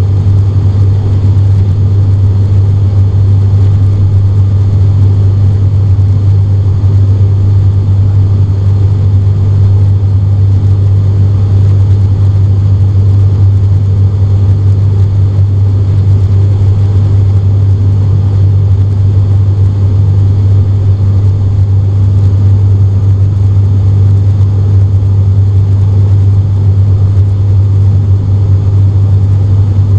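ATR 42-600's Pratt & Whitney PW127 turboprop and six-blade propeller in flight, heard inside the cabin from a window seat beside the engine: a loud, steady drone with a strong low hum.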